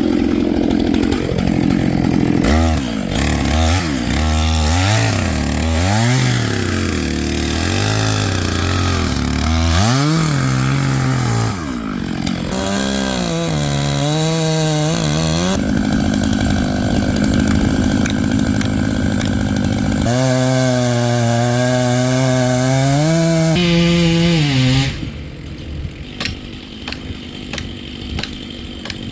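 Stihl MS661 Magnum two-stroke chainsaw cutting into a dead persimmon trunk during the felling cuts, its revs rising and falling again and again as the chain bites, then holding steady under load. Near the end the saw drops off to a much quieter level.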